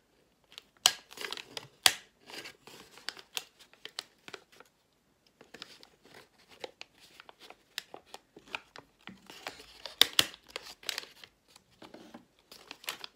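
Folded paper rustling and crinkling as a pleated sheet is handled around a plastic straw and stapled. Several sharp clicks stand out: the loudest come about a second in, near two seconds and around ten seconds.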